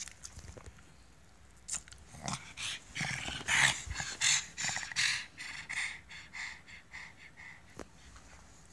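A pug making a run of short, quick noises, loudest around the middle and tapering off near the end at about three a second.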